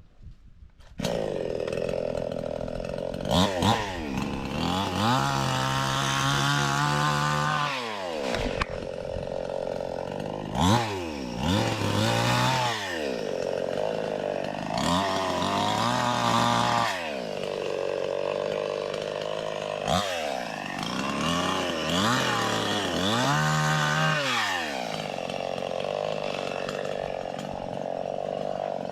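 Two-stroke chainsaw idling, then revved up to full speed and eased back to idle about four times.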